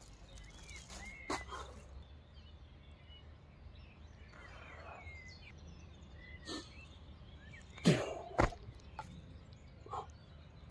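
Outdoor ambience: scattered short bird chirps over a faint low rumble, broken by a few sharp thumps and knocks. The two loudest come close together about eight seconds in.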